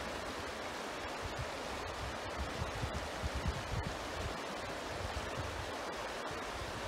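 Fast-flowing river rushing, a steady wash of water noise, with gusts of wind rumbling on the microphone.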